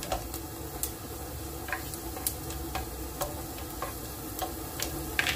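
Diced onion sizzling in oil in a nonstick pot while a spatula stirs it, with irregular light clicks and scrapes of the spatula against the pan.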